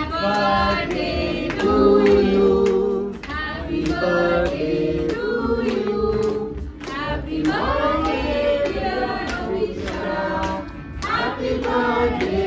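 A group of women and children singing a birthday song together, clapping along in time.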